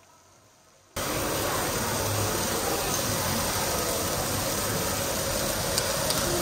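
Meat and prawns sizzling on a teppanyaki hot plate: a steady, even hiss that cuts in suddenly about a second in.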